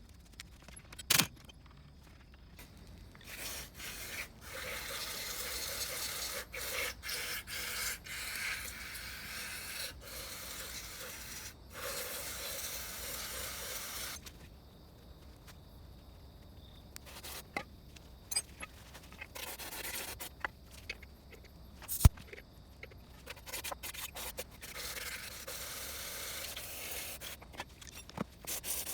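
Hand scraping and rubbing on Honda Acty transmission parts, in stretches of several seconds with short pauses between. There are two sharp knocks, a small one about a second in and a louder one later.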